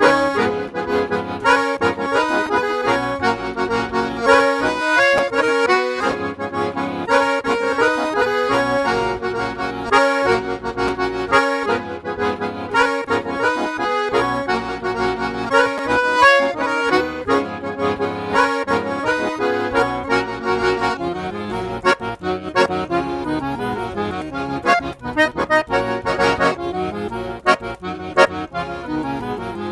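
Monarch accordion playing a bugio, the gaúcho dance rhythm, with rhythmic chords and a running bass line. The player works the bellows in the bugio's characteristic "ronco" (roaring) style.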